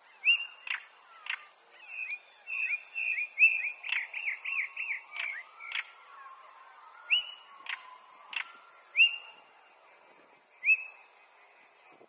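Male European stonechat calling: short whistled "hweet" notes, each with a sharp upward flick, mixed with hard clicking "tak" notes. From about two to six seconds in there is a fast run of short whistled notes.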